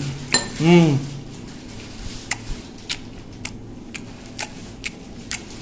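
A man's short voiced hum of relish, then eating chicken neck bone: sharp clicks about twice a second as he chews.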